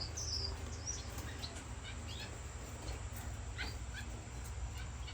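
Caged finches giving scattered short, high chirps, a few sliding down in pitch, over a steady low hum.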